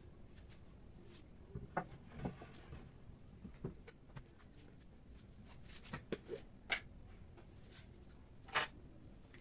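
A handful of light, separate knocks and clicks of wooden boards and small objects being handled and set down on a wooden workbench, over a faint steady background hum.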